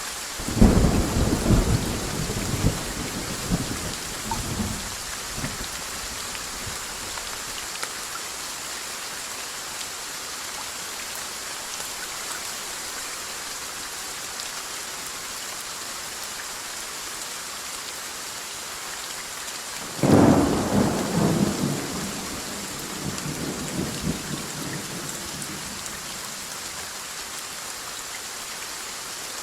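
Steady rain hiss with two thunder peals. The first cracks just after the start and rumbles away over about five seconds. The second breaks about two-thirds of the way through and rolls on for several seconds.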